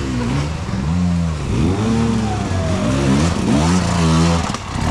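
Enduro motorcycle engine revving up and down, its pitch rising and falling again and again, about once a second, as the throttle is worked.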